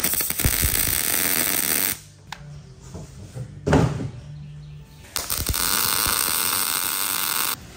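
MIG welder tack-welding a steel chrome bumper: two spells of steady crackling arc, each about two seconds, the first at the start and the second from about five seconds in. A short clatter falls between them.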